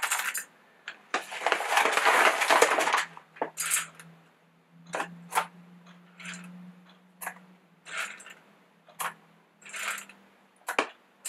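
Whole coffee beans poured from a bag into a small stainless steel cup on a kitchen scale: a rattling pour about a second in, then a string of short single clinks as a few beans at a time are dropped in to top up the weight.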